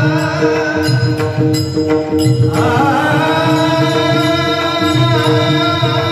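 Varkari bhajan music: hand cymbals (taal) and a mridang keep a steady rhythm under a sustained drone, and a sung voice comes in about two and a half seconds in.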